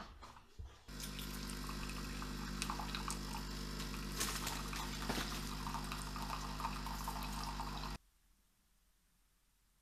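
Siemens fully automatic coffee machine dispensing hot water into a ceramic cup: the pump's steady hum under the splash of the stream filling the cup. It cuts off suddenly about eight seconds in.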